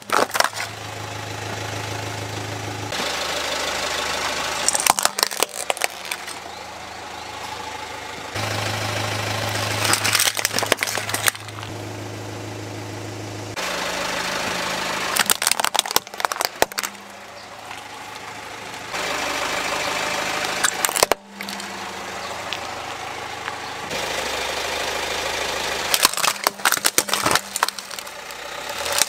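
A car engine running slowly while its tyre rolls over plastic toys, with about five short bursts of cracking and crunching plastic as each toy is crushed.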